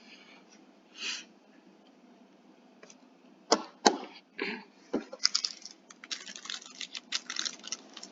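Computer keyboard keys clicking: a few separate loud clicks, then a quick run of typing about five seconds in.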